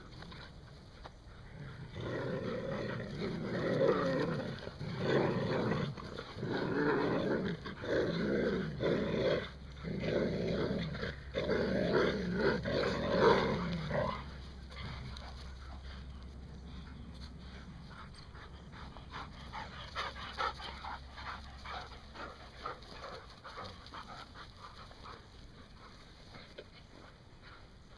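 Black-and-tan terrier puppies play-growling as they wrestle, in a string of short growling bouts through the first half, after which it goes quieter with only faint scuffling.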